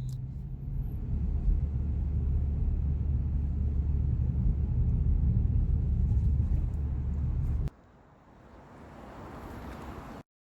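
A car running, a steady low rumble. About three-quarters of the way through it cuts off suddenly, and a quieter rushing noise swells before stopping abruptly.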